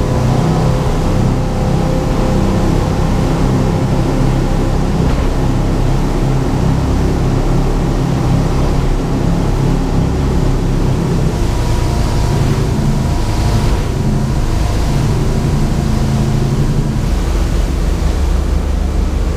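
Sportfishing boat underway at speed: a loud, steady engine drone with water rushing along the hull and wake. The engine note shifts near the end.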